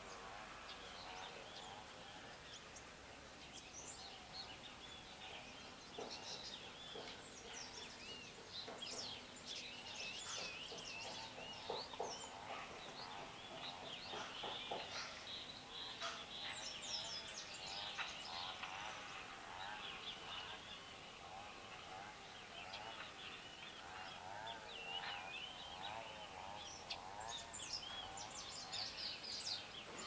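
A flock of small songbirds chirping and twittering, many short high calls overlapping, over a faint outdoor hiss. A lower, wavering warble repeats near the start and again later on.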